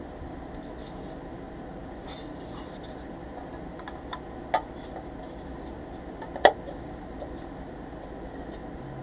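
Handling of toy parts: a black engine-housing piece being set and pressed onto a painted pressed-steel Tonka loader chassis, with light scratching and ticking and two sharp knocks in the middle, the second louder. A steady background hum runs underneath.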